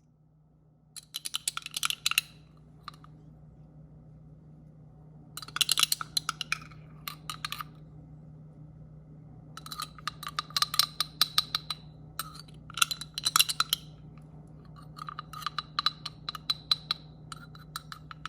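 Spoon clinking and scraping against a bowl in several bursts of quick strokes, gathering and stirring wet potato starch.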